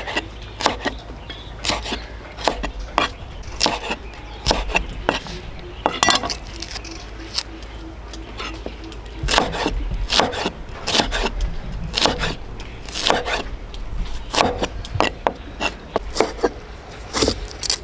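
Irregular sharp clicks and knocks of hard objects being handled, about one or two a second and busier in the second half, over a steady low rumble.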